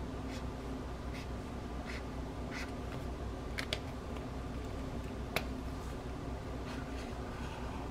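Yellow felt brush-tip marker making short, soft strokes on journal paper, roughly one every second, with two sharp clicks midway, over a steady low hum.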